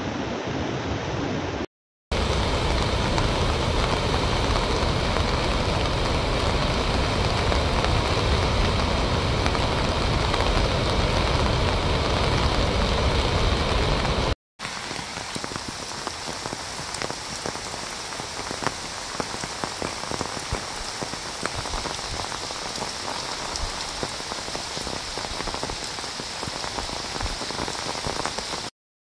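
Steady rush of water: floodwater running in a swollen river, then water pouring from dam spillway gates, louder and with a deep rumble. About halfway through it changes to steady rain pattering with fine crisp drops.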